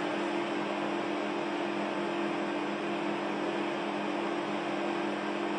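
Induction brazing machine running steadily while its coil heats a steel cutter red-hot for brazing: a steady hum of a few low tones over an even hiss.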